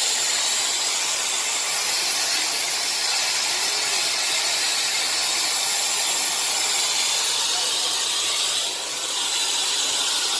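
A steady, even hiss that dips briefly near the end.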